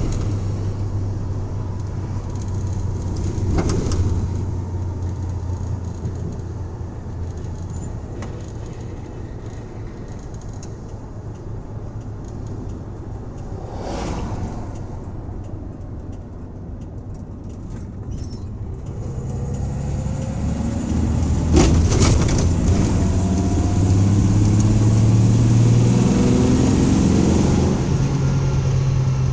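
1984 Dodge van's engine running while driving: it eases off through the middle, then pulls hard with its pitch climbing and stays loud near the end, in a wide-open-throttle run being checked for a misfire. A few sharp knocks cut in along the way.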